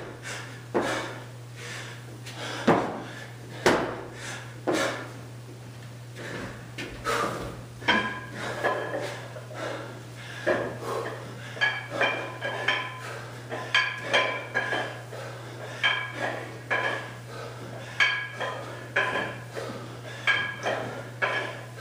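Burpee landings: hands and feet thudding on the floor about once a second. From about eight seconds in this gives way to a metallic clink with each kettlebell swing, roughly one a second, over a steady low hum.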